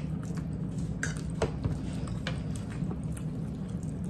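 Eating at the table: chewing and a few short clicks of forks and a knife against plates, over a steady low hum.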